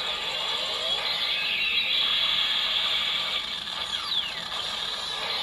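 Kamen Rider-style henshin transformation sound effect: a dense, steady electronic mechanical whirring with a bright hiss, and a couple of quick falling sweeps about four seconds in.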